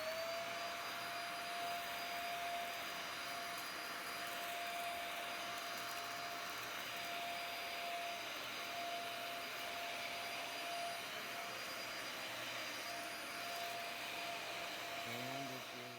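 Dyson DC50 upright vacuum cleaner running steadily with a constant motor whine, its airway freshly unclogged and working as intended. The level drops off near the end.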